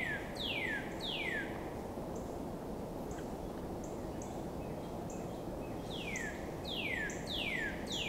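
A songbird singing runs of clear whistled notes, each sliding down in pitch, about two a second: one run at the very start and another from about six seconds in, with a few short high chips between, over a steady low background rumble.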